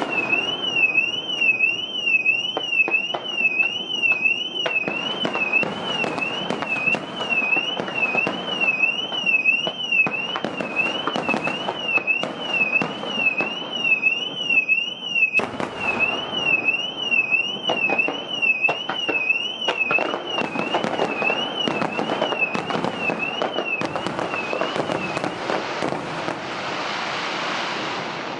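Car anti-theft alarm warbling rapidly up and down in a high pitch, set off by the blast waves of the fireworks. Underneath, fireworks crackle and boom continuously. The alarm cuts off about 25 seconds in while the fireworks carry on.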